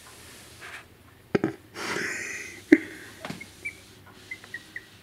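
Two-week-old Pomeranian puppies moving on a smooth countertop, making a few sharp taps and faint scrabbling as they slip. Several tiny high squeaks come near the end, and a soft breathy rush comes about two seconds in.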